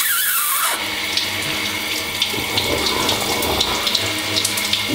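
Shower running: a steady spray of water from the shower head splashing down in a tiled shower, with a few faint drip-like ticks on top.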